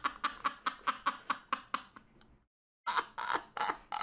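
A man laughing hard behind his hand, in quick rhythmic bursts of about five a second that fade away. The sound drops out to dead silence for a moment a little past halfway, then the laughter starts again.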